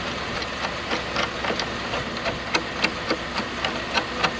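Metal chain links clinking and rattling irregularly as the chains are handled and worked loose, over a vehicle engine idling steadily.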